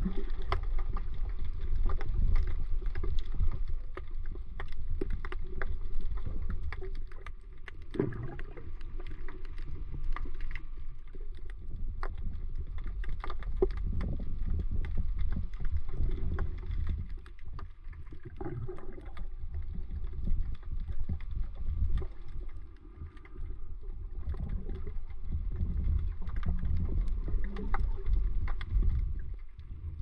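Muffled underwater sound from a submerged action camera: a low, churning rumble of moving water with scattered small clicks and knocks.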